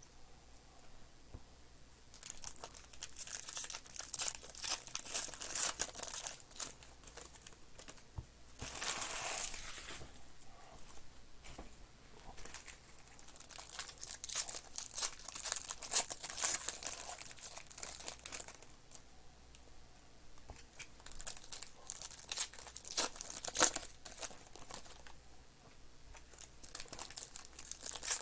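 Panini Mosaic baseball card pack wrappers being torn open and crinkled, in irregular crackling bursts, with a longer tearing rip about nine seconds in.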